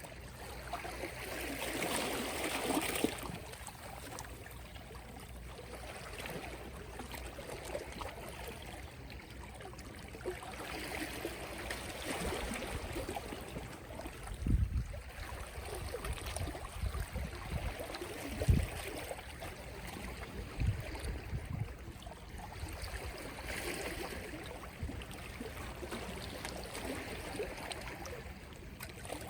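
Small, gentle sea waves lapping at the shore, each wash swelling and fading over several seconds. A couple of short low thumps sound about halfway through.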